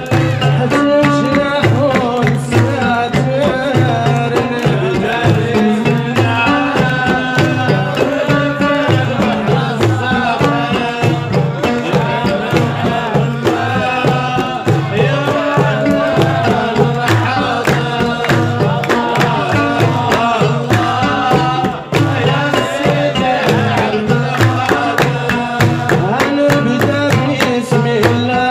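Saharan tbal shellali folk song: a man's lead voice answered by a group of men singing, over a large tbal drum beating a steady rhythm and the men's hand clapping.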